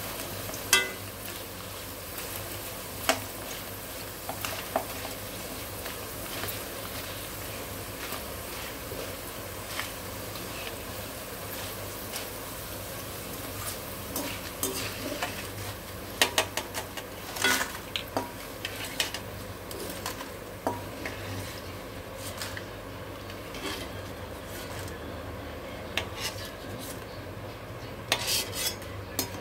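Thin potato chips deep-frying in oil in a steel kadai, with a steady sizzle, while a perforated steel skimmer stirs them and clicks and scrapes against the side of the pan. The sizzle thins toward the end as the chips are lifted out, with a quick run of metal clinks.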